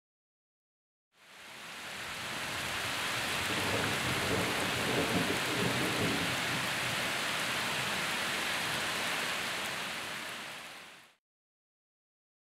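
Steady rain falling on wet gravel and puddles, an even hiss that fades in about a second in and fades out near the end, with a low rumble swelling under it in the middle.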